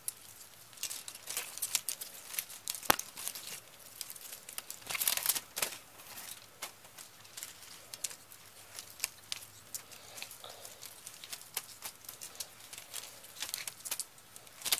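Hands handling an opened VHS cassette shell and its plastic tape reel: scattered small plastic clicks, taps and rustles. There is a sharper click about three seconds in and a denser rustle around five seconds.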